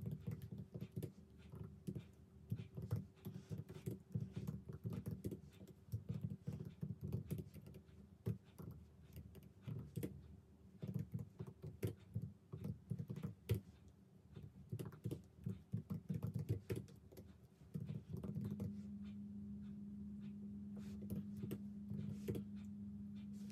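Typing on a laptop keyboard: quick, uneven key clicks. A steady low hum comes in about three-quarters of the way through, with only a few key clicks over it.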